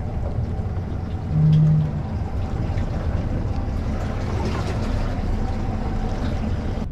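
Motorboat under way: a steady low engine rumble with wind and water noise. A short, low, steady horn blast sounds about one and a half seconds in.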